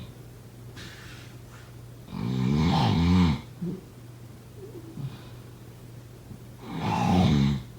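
A person snoring: two snores, each about a second long, the first about two seconds in and the second near the end, over a steady low hum.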